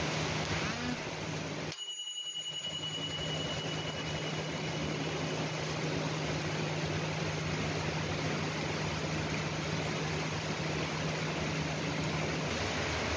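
Heavy rain falling steadily in an even hiss, with a faint low hum beneath it and a brief dip about two seconds in.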